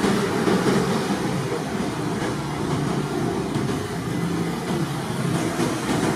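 Steady low rumbling background noise with no clear beat or pitch.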